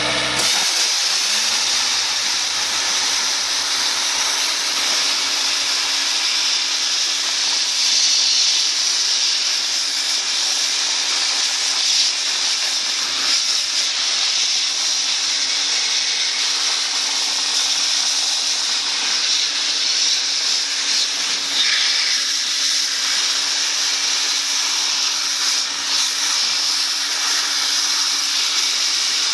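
Dry-ice blasting lance blowing compressed air and dry-ice pellets onto a metal car A/C compressor casing to strip the dirt off. It makes a loud, steady hiss with a constant hum underneath.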